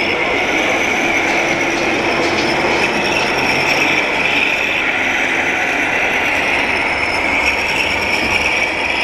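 RC scale model Kirovets K-700 tractor driving through soil, its drive motor and gearbox giving a steady mechanical whine whose pitch wavers slightly as it changes speed.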